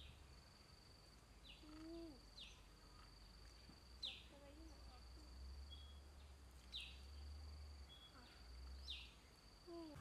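Faint outdoor ambience of a flooded forest. A steady, high-pitched insect drone runs underneath about five short bird chirps that fall in pitch, spaced a second or two apart, along with a few lower whistled bird calls.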